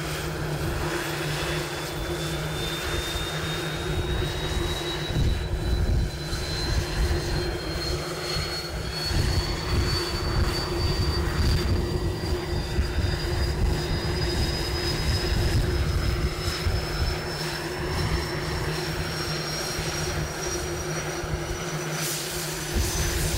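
CH-148 Cyclone helicopter running on the ground with its rotors turning: a high turbine whine that rises slowly and steadily in pitch as the engines spool up, over a steady hum and a low rumble from the rotors.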